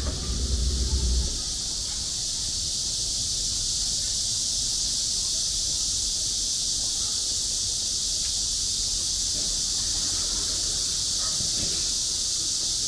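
Cicadas buzzing in a steady, high-pitched chorus. A low rumble underneath fades out about a second in.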